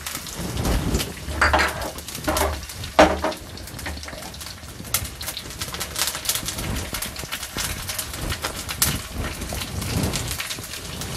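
Tempering frying in hot oil in a frying pan: curry leaves, garlic, dried red chillies and seeds sizzling, with fast crackling and spattering pops throughout. A few louder clatters in the first three seconds, as more spices are tipped in from a bowl.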